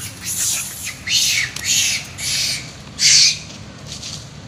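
Macaques screaming: a run of about six loud, high-pitched cries, each under a second long, the loudest about three seconds in.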